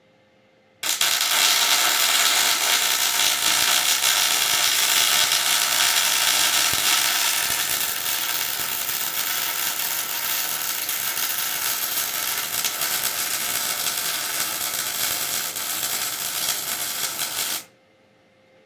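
Welding arc crackling steadily in one continuous run of about seventeen seconds, starting and stopping abruptly.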